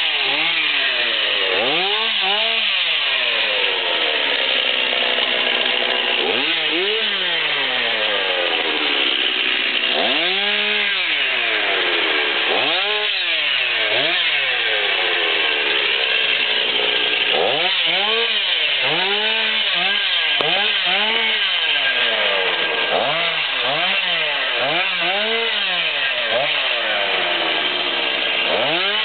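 Two-stroke chainsaw cutting through brush, revved up and let back down again and again, so its pitch rises and falls every second or two.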